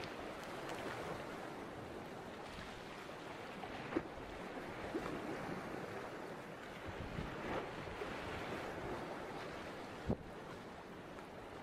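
Choppy harbour sea washing steadily, with wind buffeting the microphone. Two short knocks stand out, about four seconds in and near the end.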